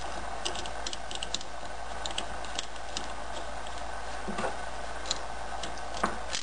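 Light metallic clicks and taps of small parts being handled as a threaded extension is screwed by hand onto an electric motor's mounting bolt, over a steady hiss, with a sharper knock near the end.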